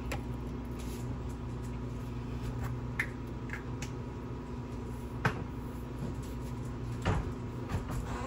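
A few sharp kitchen knocks and clicks, the loudest about five and seven seconds in, over the steady low hum of a running microwave oven.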